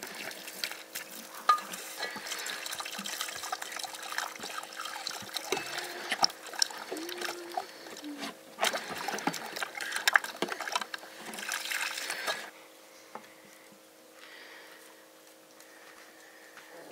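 Water splashing and trickling, with many small clicks, stopping abruptly about twelve seconds in.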